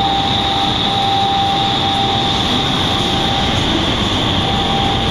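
Vertical wind tunnel for indoor skydiving running with a flyer in the airflow: a steady, loud rush of air driven by the tunnel's fans, with a thin steady tone that drops out about three and a half seconds in.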